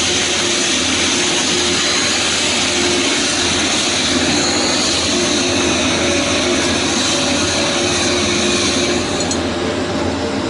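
Steady drone of workshop machinery: a loud whooshing hiss over a low hum, with the hiss thinning a little near the end.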